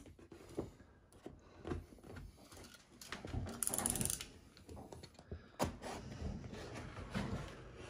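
Hand trimming of a wallpaper mural overhead: scattered light clicks and taps from the cutting blade and the paper. About three and a half seconds in, a short crisp rustle as a thin trimmed strip of wallpaper is peeled off the splice.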